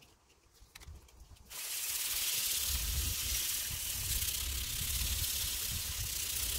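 A few faint handling clicks, then, about a second and a half in, abrasive paper on a flat block starts being rubbed hard back and forth over the rusty steel cheek of an axe head clamped in a vise: a steady, loud scratchy hiss with a low rumble under it, sanding off the rust.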